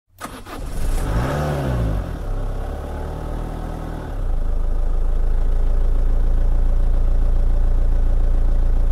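Car engine sound effect: a rev that rises and falls about a second in, then a steady low idle from about four seconds in.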